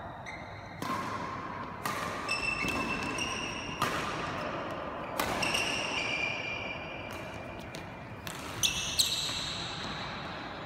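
A badminton rally in an echoing sports hall: sharp racket strikes on the shuttlecock every second or two, the loudest pair near the end, mixed with footfalls and high squeaks of court shoes on the floor.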